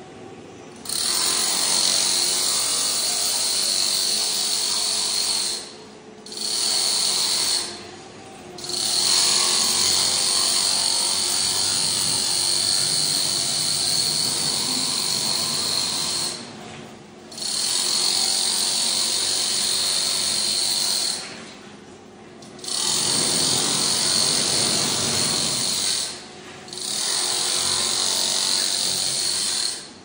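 Electric power tool running with a high whine, in six runs of one to eight seconds, each stopping abruptly for about a second before starting again.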